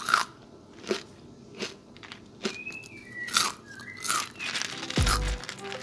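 Crispy fried shredded young papaya, coated in tapioca and rice flour batter, being bitten and chewed: a series of sharp, separate crunches, roughly one a second.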